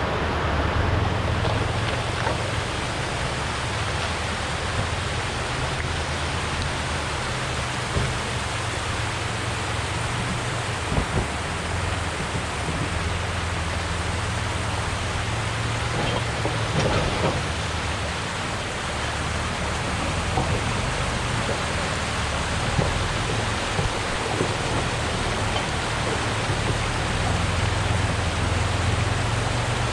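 A vehicle engine drones low and steadily under a continuous hiss of noise.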